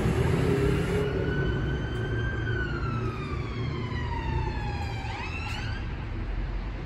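Emergency vehicle siren wailing: a slow rise, a long slow fall in pitch, then a quick sweep up about five seconds in, over steady city traffic rumble.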